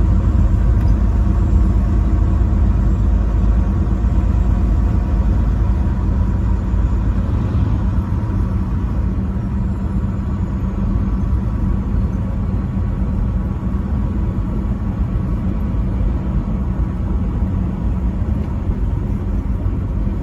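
Truck driving on the highway: a steady engine drone and road rumble, heaviest in the low end, easing slightly after about six seconds.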